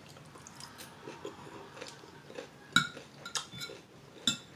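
Cutlery clinking against a plate, with three sharp clinks in the second half, and quiet chewing in between.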